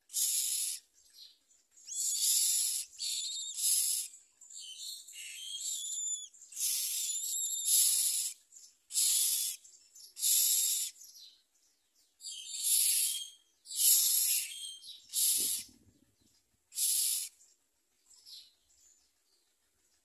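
Common myna nestlings giving harsh, hissing begging calls, about a dozen calls, each half a second to a second long, with short gaps between. They thin out near the end.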